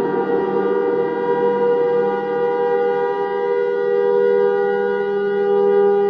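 Civil defense warning siren sounding a loud, steady tone made of two close pitches, wavering slightly.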